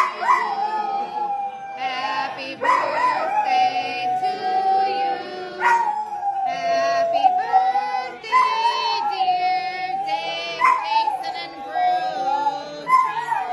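Large dog howling in long, wavering drawn-out notes, its pitch sliding up and down. There are several howls, each a few seconds long, with short breaks for breath between them.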